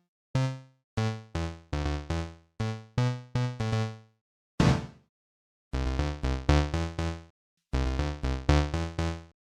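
Electronic keyboard music: short, quickly fading synthesizer chords struck in a steady pulse, stopping briefly a few times.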